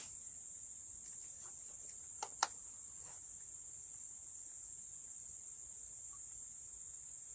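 Steady high-pitched insect chorus, with a couple of light knocks about two and a half seconds in.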